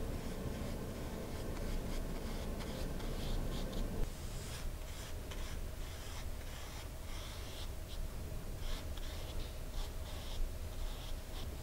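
A round paintbrush laying wet poster paint onto hot-pressed watercolour paper, in many short, soft swishing strokes one after another.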